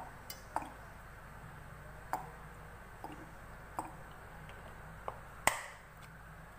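Cooking oil poured into a non-stick frying pan on a gas stove, followed by sparse small ticks and pops from the pan as the oil warms. The sharpest pop comes about five and a half seconds in.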